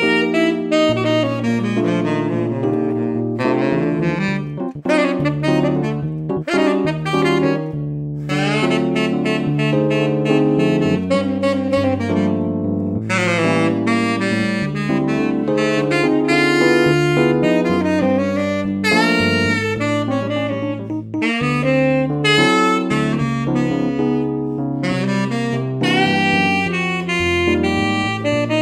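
Tenor saxophone playing a flowing jazz melody line over Rhodes electric piano chords and low notes.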